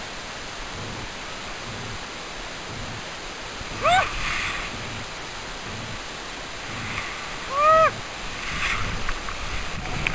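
Steady rushing hiss, with two short high-pitched cries about four and eight seconds in, each rising and then falling in pitch.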